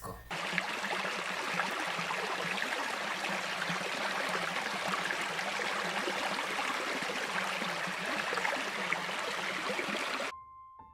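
Steady rushing noise of running water, like a stream, playing back from the exported video; it cuts off abruptly near the end.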